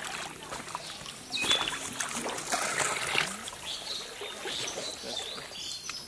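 Water splashing and sloshing in a series of irregular splashes, loudest between about one and a half and three seconds in.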